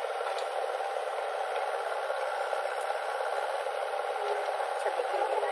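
JCB 3DX backhoe loader working, its diesel engine running steadily, heard thin and hissy with no deep rumble.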